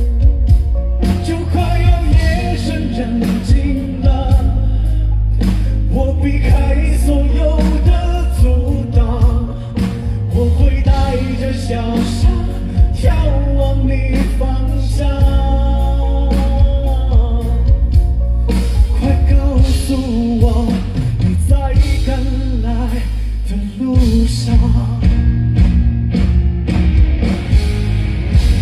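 A live pop-rock band playing loud through a PA, with singing over heavy bass and drums.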